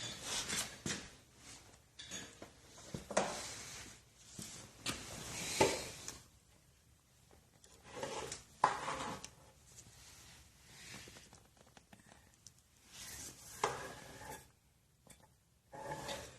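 Irregular knocks, scrapes and rubbing, as of tools or parts being handled during hand work on the engine.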